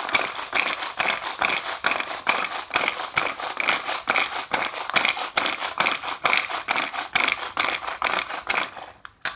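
Belscoop manual pull-cord chopper worked with quick repeated pulls, its pull mechanism and spinning blades making a fast clicking rattle, about five clicks a second, as they chop peeled garlic and shallots. The clicking stops near the end.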